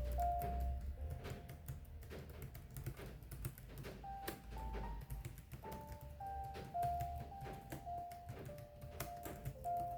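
Computer keyboard typing: a steady run of quick key clicks over soft background music with a slow melody.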